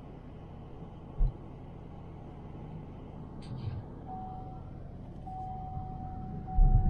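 Car cabin noise while driving: a steady low rumble of engine and road, with a low thump about a second in and more near the end. From about four seconds in, a thin steady high tone sounds on and off.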